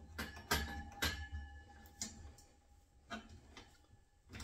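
Adjustable spanner clicking against a radiator valve's brass compression nut as the nut is tightened. About six sharp metallic clicks, irregularly spaced, each with a short ring.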